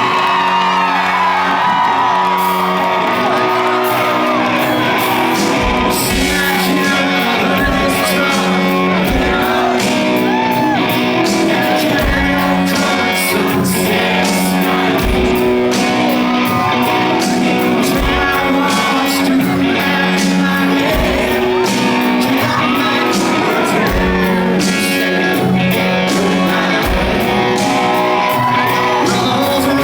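Live country band playing a song with a male lead vocal, guitars and a steady drum beat.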